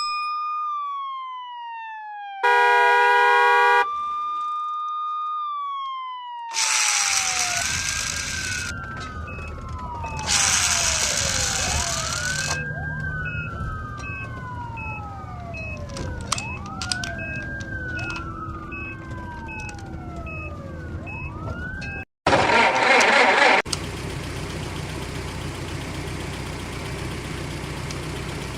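Electronic ambulance-style siren wailing, rising and falling, with a short loud horn blast a few seconds in and two bursts of hiss. The wail then repeats faster over a steady beeping tone. A loud burst of noise comes near the end, followed by a steady engine-like rumble.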